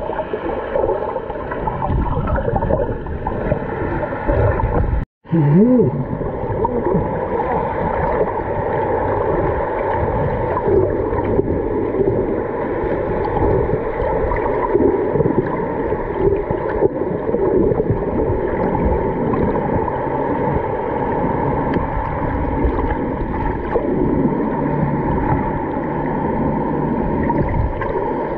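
Muffled rushing and gurgling of water heard through a submerged camera, steady throughout, with a brief drop-out to silence about five seconds in.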